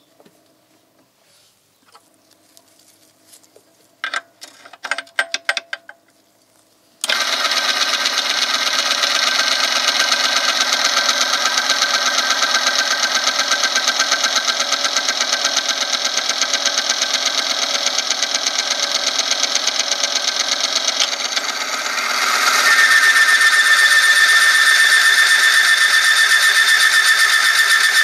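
Oil film strength test machine running: its electric motor spins a steel ring against a test sample in hot engine oil, giving a loud, steady grinding whine that starts suddenly about seven seconds in, after a few sharp clicks. About twenty-two seconds in it gets louder, with a strong high squeal on top, as more weight loads the lever arm.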